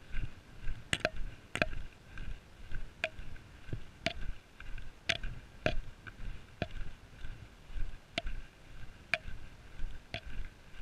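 Walking footsteps on a sandy heath track, with the tip of a trekking pole clicking against the ground about once a second.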